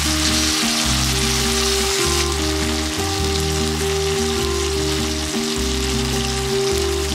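Shrimp and oyster sauce sizzling steadily in hot oil in a non-stick frying pan. A pop song with a steady bass line plays underneath.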